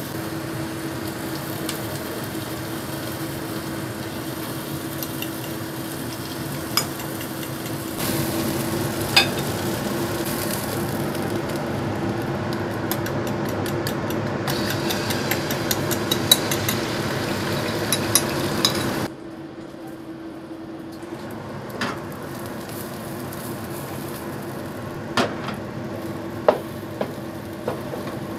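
A fork whisks eggs in a porcelain bowl, clicking against it now and then, over a steady sizzle of frying. Then the beaten egg goes into hot oil in a nonstick wok and sizzles as a wooden spatula scrapes and turns it.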